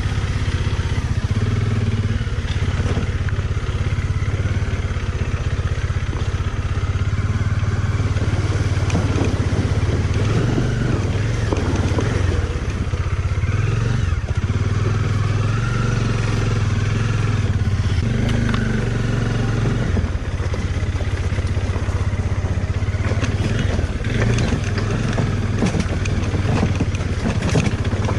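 Motorcycle engine running steadily at low speed on a rough dirt trail off-road, the engine note rising and falling a little. Rattles and clatter from the bike over the rough ground grow near the end.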